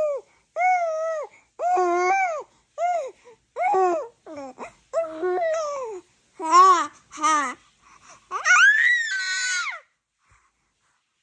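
A toddler babbling in a run of short, high-pitched sing-song syllables. It ends with a longer squeal that rises and falls, about eight and a half seconds in.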